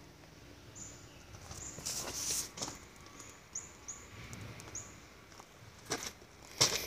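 A small bird giving short high chirps over and over, with a few footsteps on gravel and dirt, the loudest near the end.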